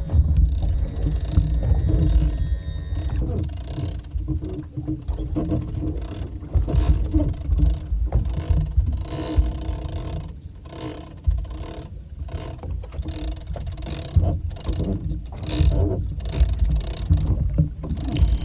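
Wind buffeting the microphone aboard a small boat, over a faint steady hum. Over this come repeated short mechanical rasping strokes from a big-game fishing reel being worked while a fish is being fought.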